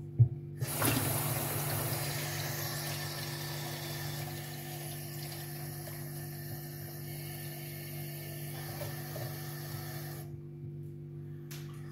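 Water running from a tap to top up a drink. A click comes just before it starts, and the flow runs steadily for about nine seconds before stopping abruptly near the end.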